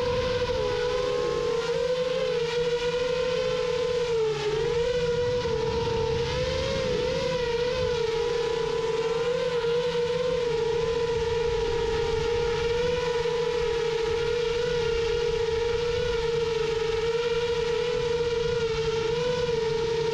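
Rajawali Fold 7 FPV quadcopter's motors and propellers in flight: a steady whine that wavers slightly in pitch as the throttle shifts, over low rushing wind noise.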